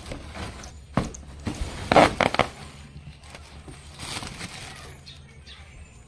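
Plastic packaging and bubble wrap rustling while the wire fan guard is pulled out of its cardboard box, with irregular knocks and clatter, the loudest about two seconds in.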